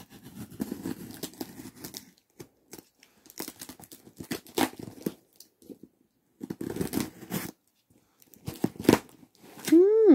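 Packing tape being ripped and peeled off a cardboard parcel box in several bursts of tearing and crinkling. A short squeal that rises and falls in pitch comes near the end.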